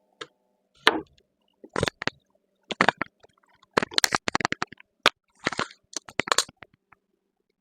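A series of sharp knocks and clatters, irregular and of varying loudness, from pieces of cedar board and tools being handled and set down at a miter saw bench.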